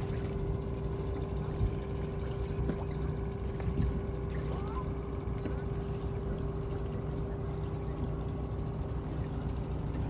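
Boat engine running steadily with a constant low drone and hum that does not change in pitch.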